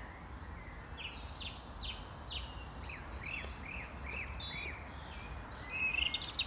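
European robin singing: a run of short, evenly spaced chirping notes, then a loud, high, thin note about five seconds in and a quick burst of rising notes near the end, over a steady low background rumble.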